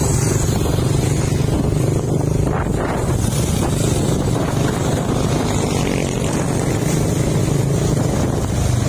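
Motorcycle engine running steadily at road speed, with wind and road noise.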